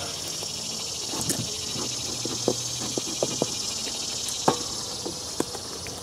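Short, sharp wooden clicks and knocks, about eight of them, the loudest about halfway, as wooden hive frames and boards are handled and shifted. A steady high insect drone continues behind them.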